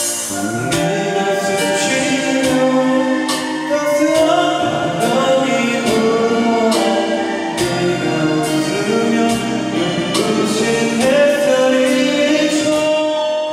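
Singing over a musical accompaniment, with long held notes.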